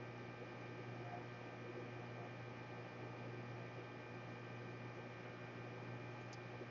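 Steady electrical hum with several steady tones above it, and a single faint tick near the end.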